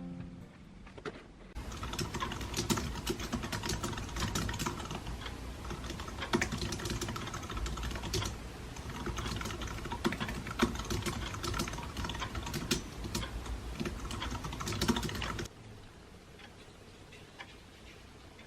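Typing on a Bluetooth keyboard: fast, irregular key clicks for about fourteen seconds, stopping a few seconds before the end.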